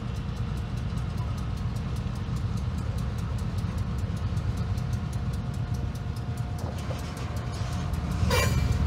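EMD MP15 switcher locomotive's diesel engine running with a low, steady rumble, while a grade-crossing bell rings rapidly and evenly. A louder rushing noise comes in near the end.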